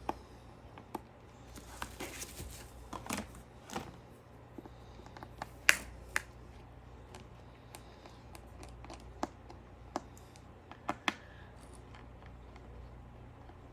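Scattered sharp clicks and taps of a small screwdriver and tiny screws being worked out of a phone's frame and set down, with one louder tap about six seconds in, over a faint steady low hum.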